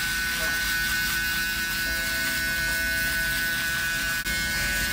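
Electric foil shaver running steadily as it is moved over a man's beard stubble, a constant high-pitched hum with a brief dip about four seconds in.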